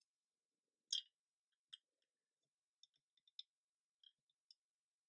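Near silence broken by a few faint, short clicks of metal tweezers handling a small plastic model part, the loudest about a second in and about half a dozen lighter ones after.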